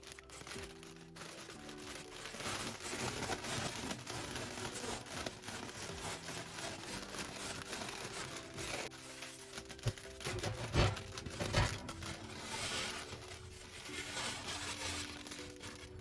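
Crinkly foil bag of Doritos tortilla chips being crumpled and shaken by hand, with crushed chips pouring out onto a plate and a few louder crunches a little past the middle. Soft background music plays underneath.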